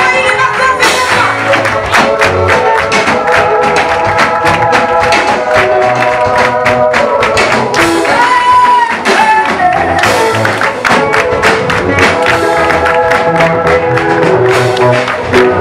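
Live church praise music: a worship team singing a Swahili praise song over a band with bass and a steady drum beat.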